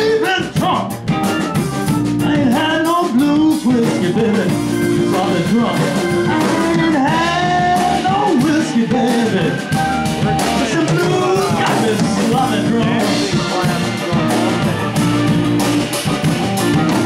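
Blues band playing an instrumental passage: a lead line of sliding, bending notes over a steady beat.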